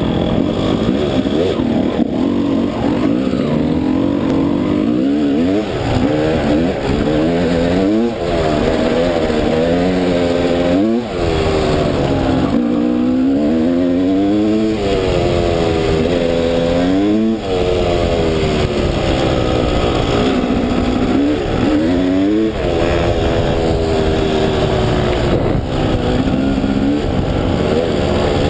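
Dirt bike engine heard from on the bike, revving up and down over and over as it is ridden. Its pitch climbs in repeated sweeps and drops off sharply several times, over a constant low rumble.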